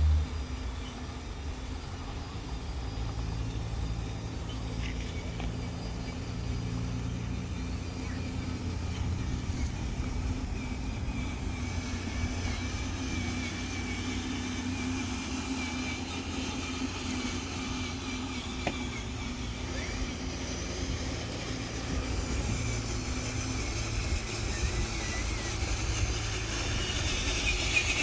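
Radio-controlled toy truck running: a steady motor whine over a low rumble.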